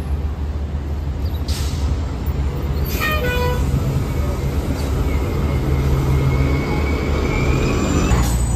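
MTA city bus passing close through an intersection, its engine running and getting louder as it pulls by, with a faint whine that rises slightly as it accelerates. There is a short horn toot about three seconds in and brief hisses near the start and near the end.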